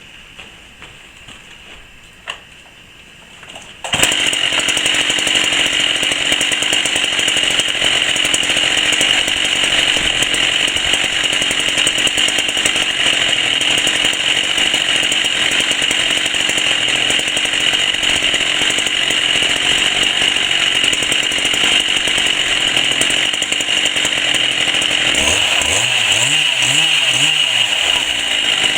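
Chainsaw cutting in suddenly about four seconds in and running steadily at a high, even pitch; before that, quiet with a single click.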